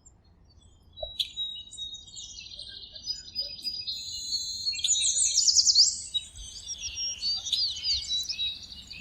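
Birdsong: several small birds chirping and trilling at once, with quick sweeping whistles. It starts about a second in and is busiest around the middle.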